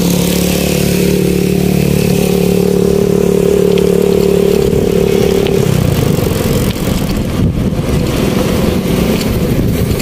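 Motorcycle engine running at a steady cruising speed while riding. About six seconds in, the steady engine note drops away and is replaced by a rougher rush of wind and road noise.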